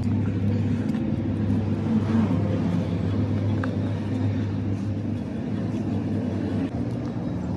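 A motor running steadily, giving a continuous low drone with a hum.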